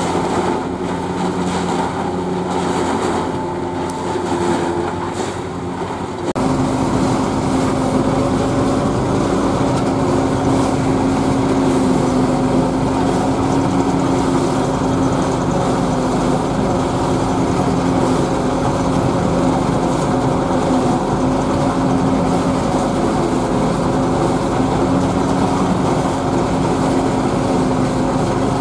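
Zetor 8011 tractor's four-cylinder diesel engine running steadily under load, driving an SKPU 220 forage harvester that chops standing corn for silage. About six seconds in the sound cuts to a louder, steadier engine note heard from inside the tractor cab.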